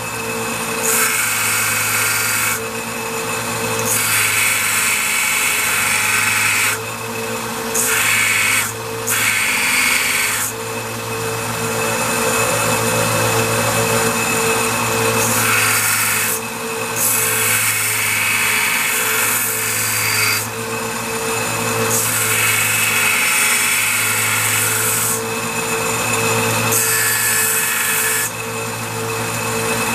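Narrow-belt grinder running steadily while the end of a stainless steel bolt is pressed against the belt, grinding it down to shape. A rasping grinding noise comes and goes every few seconds as the bolt is pushed on and lifted off, over the constant hum of the motor.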